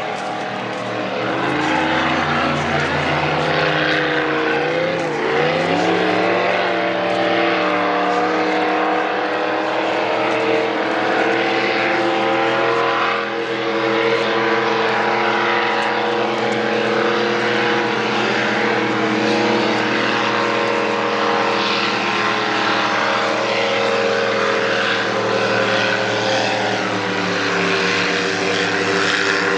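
Racing powerboat engines running at speed: a steady, loud drone whose pitch wavers a few seconds in, then holds.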